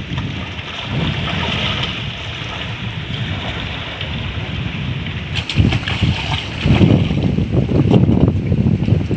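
Wind buffeting the microphone over lapping shallow seawater. From about five seconds in, there are irregular splashes from someone wading and handling things in the water.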